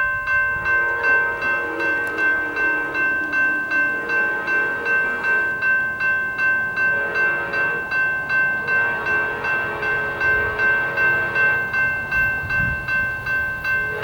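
Level crossing bell ringing steadily, about two strokes a second. Under it, the horn of an approaching Amtrak GE P42DC locomotive sounds in a series of fainter blasts, the engineer playing a horn show.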